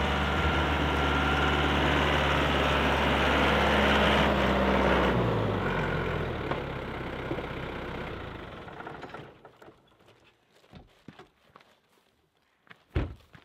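Compact tractor engine running steadily, then throttling down about five seconds in and dying away by about nine seconds in as it is shut off. After that only a few faint clicks and one short thump near the end.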